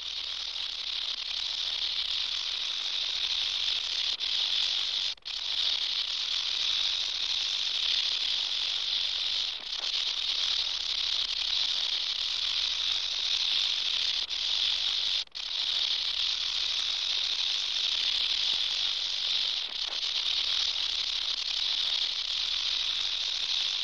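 Rattlesnake shaking its tail rattle in a continuous high buzz, the snake's warning rattle. It breaks off for a moment about five seconds in and again about fifteen seconds in.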